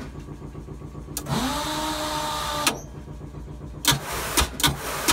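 Sawmill setworks motor spinning up with a rising whine, running about a second and a half and stopping, followed by several sharp clanks from the mechanism, over a low steady hum.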